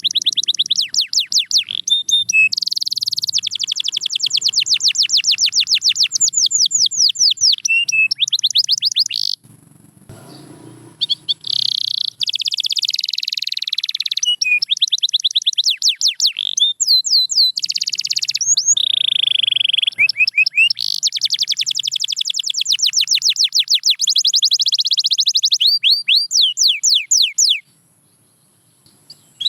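Domestic canary singing long, fast trills of rapidly repeated high notes, with a pause of about two seconds partway through; the song stops shortly before the end.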